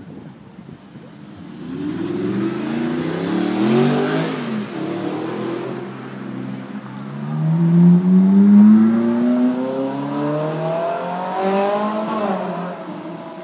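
Ferrari 458 Italia and Audi R8 sports cars accelerating hard past, engines revving up in pitch. One goes by about four seconds in; a longer, louder run of rising engine notes follows, its pitch dropping as it passes near the end.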